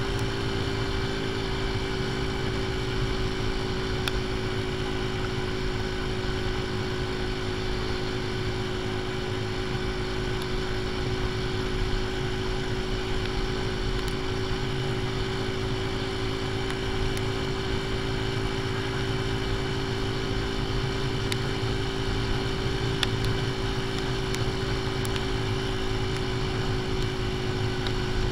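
AJS Tempest Scrambler's single-cylinder engine running at a steady cruising speed, its note holding level, with constant wind rush.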